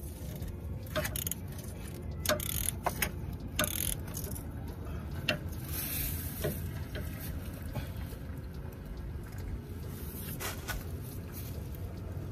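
Irregular sharp metal clicks and taps of a ratchet and socket extension knocking against parts under the vehicle as it is worked toward the oil filter, most of them in the first few seconds, over a low steady rumble.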